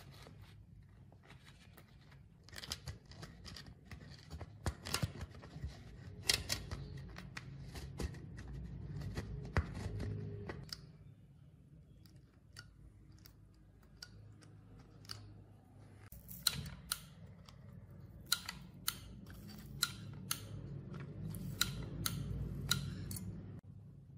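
Hand-tool work sounds: irregular clusters of sharp clicks and snips, over a low steady hum.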